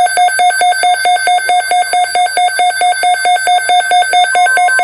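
Weather radio receiver sounding its alert alarm for an incoming NOAA Weather Radio warning: loud, rapid electronic beeping, about five beeps a second. About four seconds in, a steady higher tone joins beneath the beeps.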